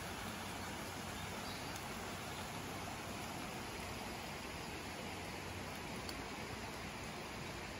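Steady hiss of light rain falling in woodland, mixed with the shallow river running over stones.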